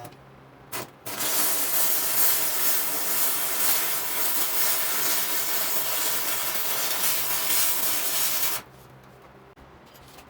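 Electric arc welder running a weld bead on steel angle iron: a brief strike, then a steady hiss for about seven and a half seconds that cuts off abruptly.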